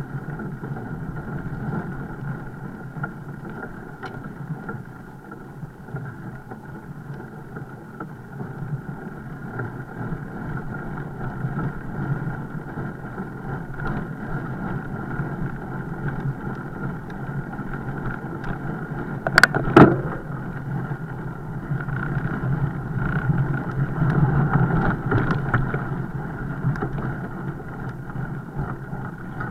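Steady rumble of a fat bike being ridden, with two sharp knocks in quick succession about twenty seconds in.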